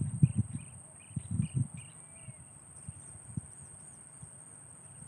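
A steady high-pitched insect drone with short bird chirps in the first two seconds and a run of repeated high calls toward the end. Several dull low thumps in the first second and a half are the loudest sound.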